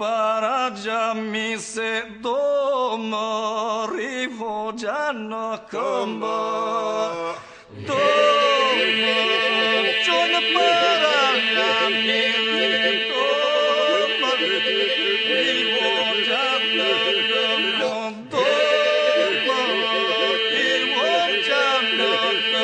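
Albanian Lab-style polyphonic singing of an ilahi, a Muslim devotional song, with no instruments. A lead voice winds over a steady held drone, and about eight seconds in the group comes in fuller and louder on a higher drone, with a brief break near the end.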